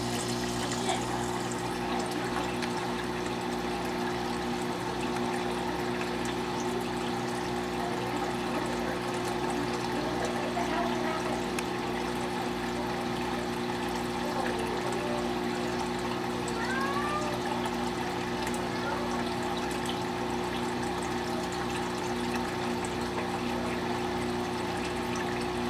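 Steady hum of saltwater aquarium equipment with water trickling and running through the tank's circulation.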